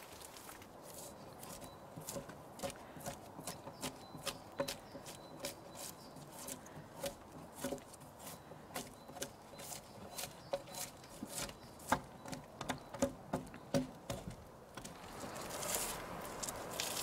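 Drawknife strokes peeling bark off a log, a short scraping rasp with each pull, about one to two a second. Near the end the separate strokes give way to a denser, steadier scraping.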